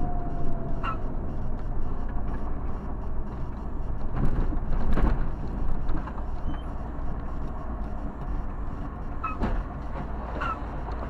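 Steady road and engine noise of a vehicle driving in traffic, with a few short knocks about four to five seconds in.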